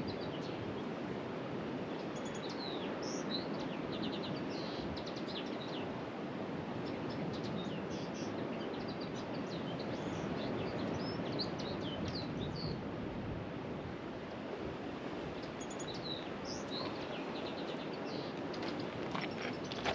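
Small birds chirping in quick, repeated short calls over a steady rushing background noise.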